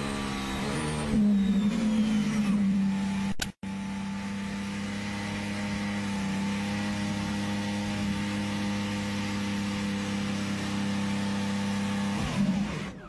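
Onboard sound of a Mercedes Formula 1 car's turbocharged V6 with an engine failure. It revs and shifts down for the first couple of seconds, drops out for a moment, then holds one steady note for about eight seconds. Near the end its pitch sags and the engine sound dies away as the engine gives out.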